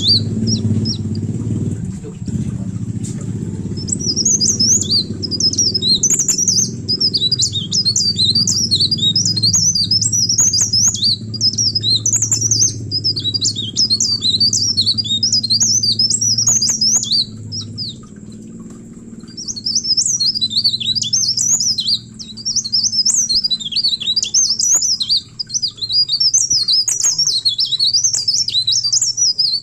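Cikrak daun songbird singing a rapid, high twittering 'receh' song in long unbroken phrases. There is a pause of a few seconds near the start and a short break about two-thirds of the way through. A steady low hum runs underneath.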